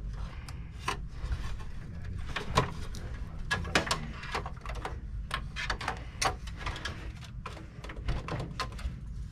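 Irregular clicks and light knocks as metal and plastic parts inside a Dell Precision 7920 workstation tower's chassis are handled and fitted, with the sharpest clicks a little before the middle.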